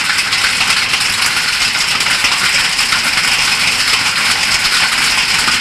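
Heavy hail pelting down on a garden, a dense steady clatter of countless small ice pellets striking the ground and leaves.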